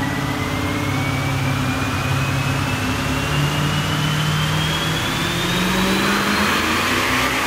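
Turbocharged, methanol-burning 380 small-block Chevy V8 with mechanical injection running under load on an engine dyno, revs slowly building. A thin high whine rises steadily in pitch as the revs climb.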